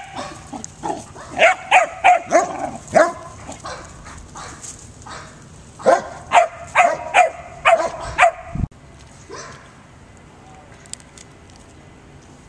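A dog barking and yipping in play: two quick runs of short, high barks, a handful in each, with the second run ending about two-thirds of the way in.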